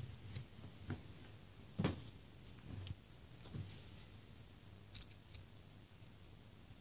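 A hamster nibbling cat grass: faint, scattered small clicks and snips as it bites the blades, with a louder tick and soft bump about two seconds in.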